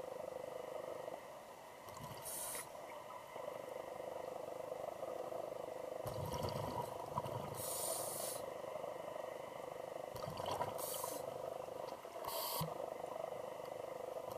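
Scuba diver breathing through a regulator, heard underwater: short hisses of inhalation every few seconds and low rumbling of exhaled bubbles, over a steady hum.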